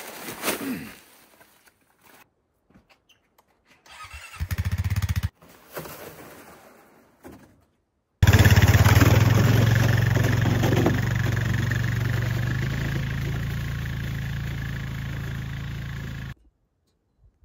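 ATV engine running as the quad pulls away towing a loaded sled, its sound fading steadily as it drives off, then cutting off suddenly near the end. Earlier, a short burst of the engine idling.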